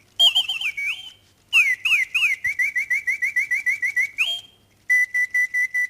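Mechanical singing-bird automaton whistling its song: quick rising and falling chirps, a run of fast, evenly repeated trill notes, then a steady warbling note, broken by two short pauses.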